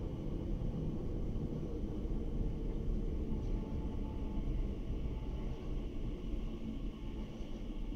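Steady low rumble of an underground railway platform's background noise, with faint steady hums above it.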